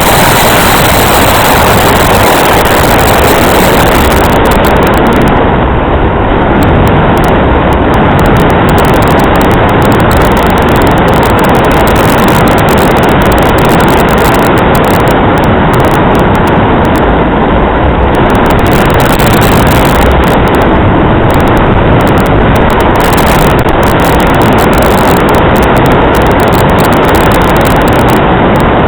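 Strong wind blowing over the microphone: a loud, steady rush of noise with no distinct tones or events.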